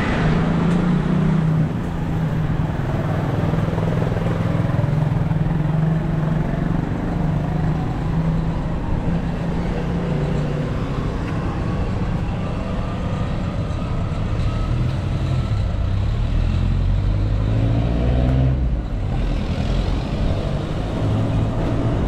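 Street traffic: motor-vehicle engines running close by, a steady low hum that drops to a lower pitch about halfway through and fades out shortly before the end.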